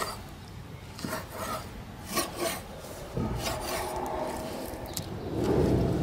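Kitchen knife cutting raw fish into pieces on a wooden board, with several sharp strokes of the blade against the board. A louder, steadier noise comes in near the end.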